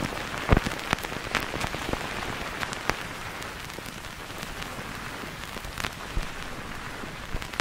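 Rain ambience opening a lofi hip-hop track: a steady hiss of rain with scattered sharp drops and crackles.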